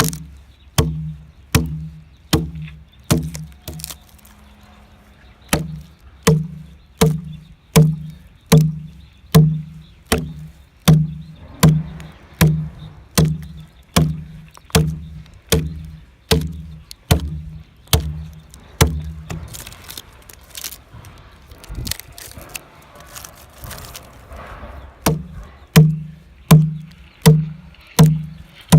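Steady chopping blows of a non-iron hand tool hewing into a Chinese fir log, about three strikes every two seconds, each with a low wooden ring from the log. The blows pause briefly about four seconds in, break off for about five seconds past the middle, and then resume.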